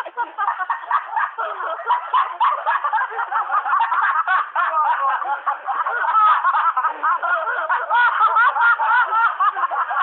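Several people laughing together, their voices overlapping continuously and getting a little louder about halfway through.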